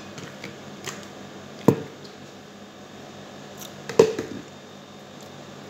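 Two sharp knocks of things being set down on a dining table, one about a second and a half in and one about four seconds in, over a steady low hum.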